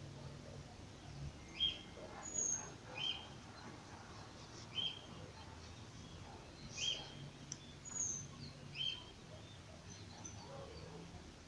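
A bird chirping faintly: short, clipped calls repeated every second or two, some on a higher note than the rest.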